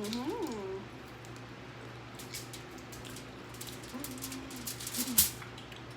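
Eating sounds: scattered wet mouth clicks and chewing, with a sharp click about five seconds in. A short sliding vocal sound opens it and a brief hum comes about four seconds in.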